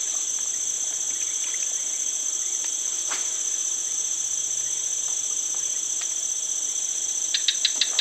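Steady, shrill insect chorus, unbroken throughout, with one faint click about three seconds in and a quick run of four sharp clicks near the end.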